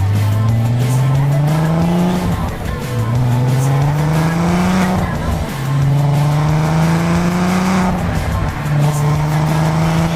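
Volkswagen Golf R32's 3.2-litre VR6 on its stock exhaust, accelerating hard through the gears. The engine note climbs steadily, then drops back at each of three upshifts, about two, five and eight seconds in.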